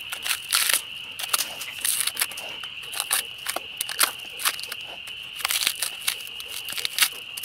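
Fixed-blade knife scraping and chipping the rough outer bark off a birch trunk: a run of short rasping scrapes at an uneven pace, the blade working down to the bare wood.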